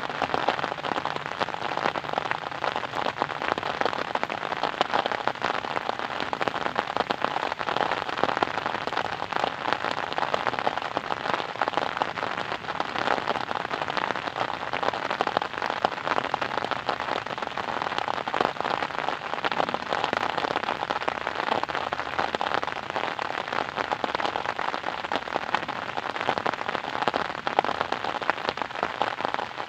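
Steady rain falling, a dense pattering of many small drops hitting a surface without letup.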